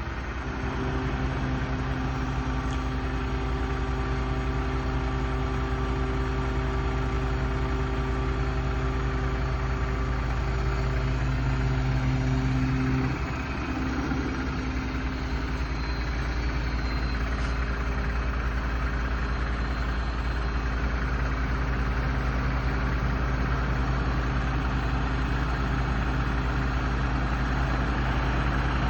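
Vehicle engine idling steadily, with a brief change in its note about 13 seconds in before it settles back to the same steady idle.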